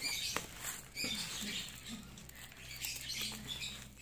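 Crinkling and rustling of clear plastic stretch wrap and bubble wrap as hands pull and tear at a wrapped parcel, in irregular crackly bursts.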